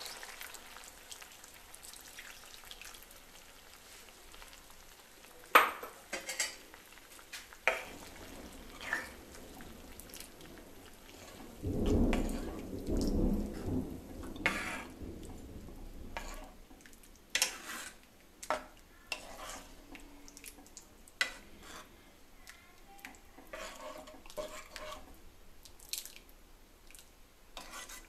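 Steel ladle stirring a coconut-milk stew in a steel kadai, tapping and clicking against the pan now and then, with a low rumbling stretch of handling about twelve seconds in. Near the start the last of the poured thick coconut milk trails off.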